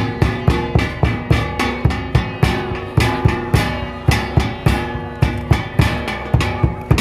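Music for a Thai xòe dance: a plucked-string melody over a fast, steady drum beat.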